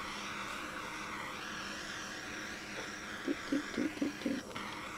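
Handheld butane torch hissing steadily as its flame is swept over wet acrylic pour paint to pop surface bubbles. A few brief low sounds come about three seconds in.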